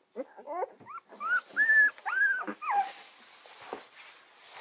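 Central Asian shepherd puppies whimpering: a run of short rising squeaks, then several longer high whines that rise and fall, loudest about a second and a half in, dying away after about three seconds into soft rustling.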